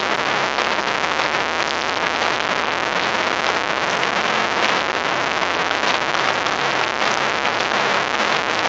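A live band's music recorded on a phone whose microphone is overloaded, so it comes through as a loud, steady, distorted hiss with little clear tone.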